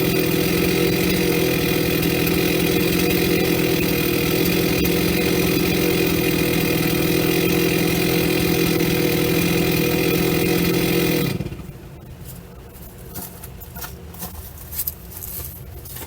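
Gas chainsaw running at steady high revs while cutting through a large burl, then cutting off sharply about eleven seconds in, leaving a few light knocks and clicks.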